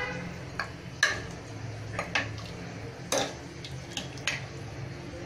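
A steel ladle stirring curry in an aluminium pressure cooker, clinking sharply against the metal pot about five times at irregular moments, over a steady low hum.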